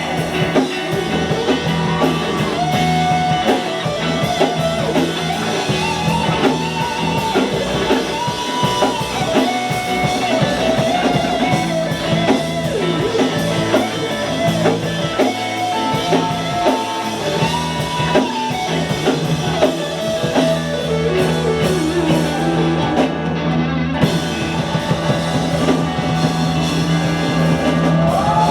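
Rock band music: guitar and drum kit under a melodic lead line that slides between notes.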